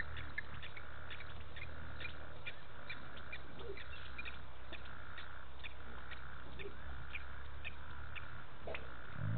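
Frogs calling at a waterhole at night: a steady run of short, high clicks with a buzzy call repeating about once a second, over a low hum. A single low thump comes near the end.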